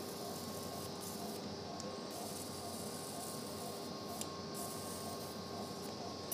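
Operating-room background during electrosurgical dissection: a steady hiss with a faint steady tone underneath and a few soft clicks.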